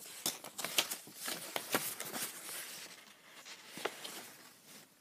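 Paper rustling and sliding as a paper receipt folder and card sheets are handled and their pages turned: a quick run of crisp rustles in the first couple of seconds, thinning to a few softer ones and a light tap near four seconds.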